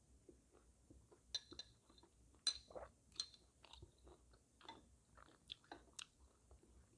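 Faint, irregular chewing and mouth clicks of someone eating a spoonful of soft, vinegar-soaked silkworm pupae (beondegi), with the loudest smack about two and a half seconds in.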